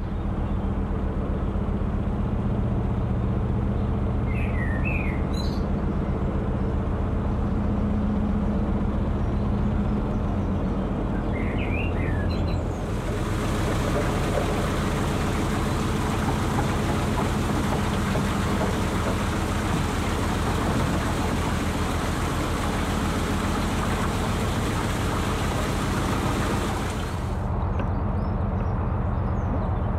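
A narrowboat's diesel engine running steadily at low revs, with a few bird chirps. About halfway through, the rushing of water pouring through the leaking top gates into the deep lock chamber takes over, and it cuts off suddenly near the end.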